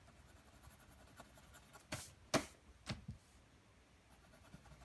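Faint writing on paper with a freshly tried pen or pencil, broken by a few short taps and clicks about two to three seconds in.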